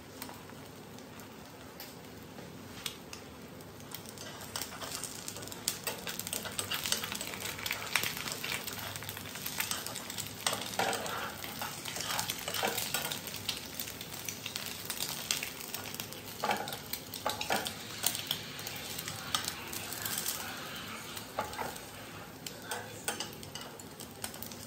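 Egg frying in oil in a pan, sizzling steadily, with frequent scrapes and taps of metal chopsticks against the pan as the egg is pushed and folded over. After the first few seconds the scraping gets busier and louder.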